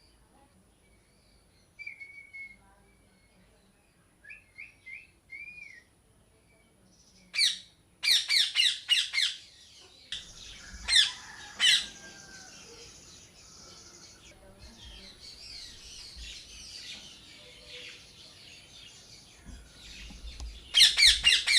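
Parrots calling: a few soft whistled notes, then from about seven seconds in bursts of rapid harsh squawks, two loud single squawks, and lower chattering calls, with another rapid burst of squawks near the end.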